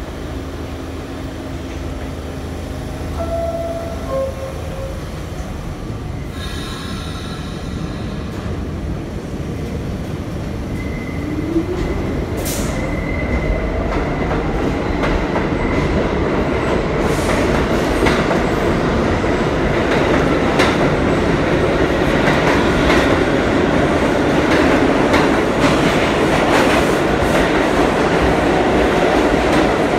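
A New York City subway train pulling out of the station. After a short tone about seven seconds in, the traction motors whine up in pitch, then the wheels click over the rail joints, growing steadily louder as the train gathers speed.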